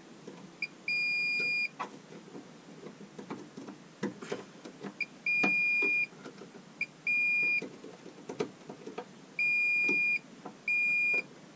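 Digital multimeter's continuity beeper sounding a steady high tone in short blips and beeps of up to about a second, about five times, as the probes touch the cable's conductors, with faint clicks of probe handling in between. Each beep shows a closed circuit: the cable, its conductors joined at the far end, has no break.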